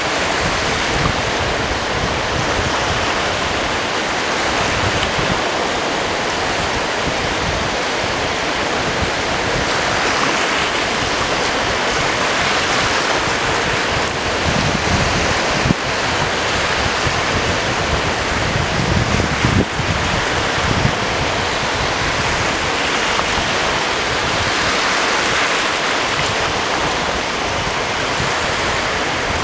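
Small lake waves washing onto a sandy shore, a steady rushing, with wind buffeting the microphone and a couple of brief knocks about halfway through.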